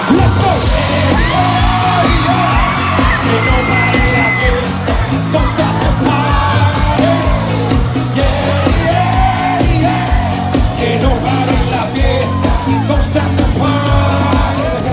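Loud live dance-pop music over concert speakers: a heavy, steady beat kicks in suddenly at the start, with sung vocals and yelling over it.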